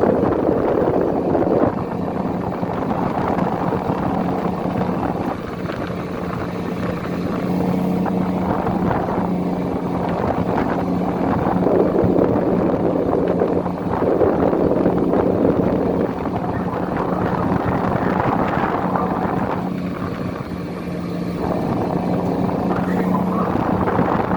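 Crab-fishing boat's engine running at a steady pitch, with rushing water and wind noise swelling and easing every few seconds.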